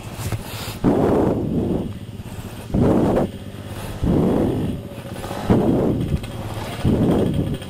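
A rider breathing heavily into a helmet-mounted microphone: about five loud breaths, one every second and a half or so, over the low running of a Honda CRF150R dirt bike engine.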